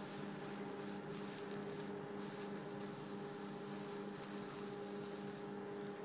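Steady electrical hum of a running HHO (oxyhydrogen) generator, with an even hiss from the oxyhydrogen torch flame as it scorches wood.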